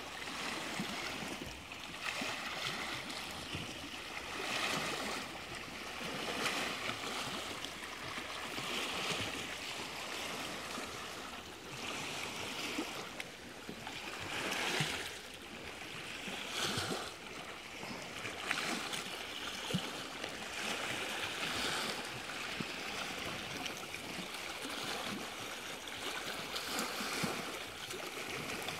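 Small waves on Lake Superior lapping against sandstone shore ledges: a steady wash of water, with a splash swelling every couple of seconds.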